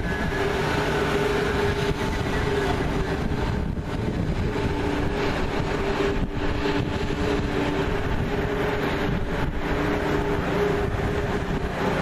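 Fire apparatus engine and pump running steadily to feed an aerial ladder's water stream: a loud mechanical drone with a few held tones, over wind rumbling on the microphone.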